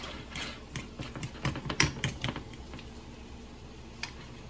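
A utensil clicking and scraping against a stainless steel saucepan as mashed potatoes are stirred: irregular light clicks, thick in the first two and a half seconds, then one more about four seconds in.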